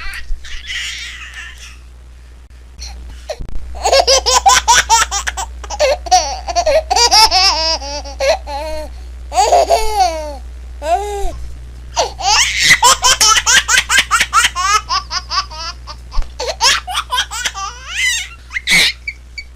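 A baby laughing in two long fits of quick, high-pitched bursts, starting a few seconds in, with a short break near the middle, over a steady low hum.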